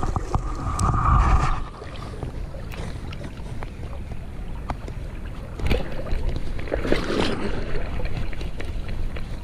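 Wind rumbling on the microphone over the wash of a flowing creek, with a short, louder noisy rush about seven seconds in.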